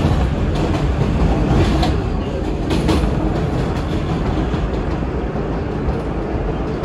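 An R160 subway train running along the track, heard from on board: a steady rumble of wheels on rail, with a few sharp clicks from the wheels about two to three seconds in.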